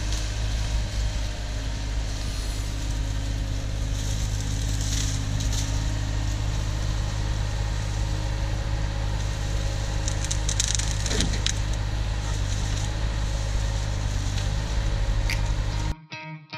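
Caterpillar 304 mini excavator's diesel engine running steadily, with wood and brush crackling and snapping, in clusters about four to six seconds in and again around ten to eleven seconds. The engine sound cuts off abruptly near the end.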